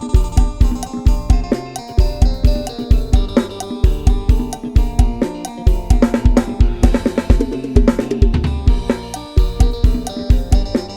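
Instrumental Isan lam sing music in the 'lai hae' pattern, played from programmed drum-kit and sampled bass sounds made to imitate a live band. A steady kick-and-snare beat with hi-hat and cymbals runs under a melody line, with a busy drum fill from about six to nine seconds in.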